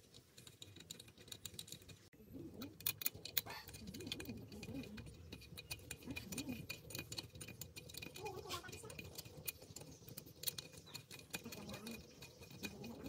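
Small metal clicks and taps of a hex key and steel parts on a chainsaw's bar mount as they are handled and turned.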